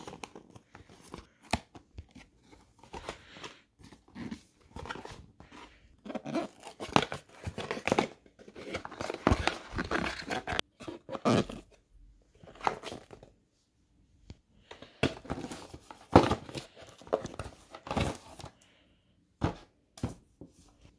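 Cardboard product box being unboxed by hand: the tear strip pulled off, then the lid opened and cardboard inserts slid and handled, giving irregular tearing, scraping and rustling in bursts with short pauses.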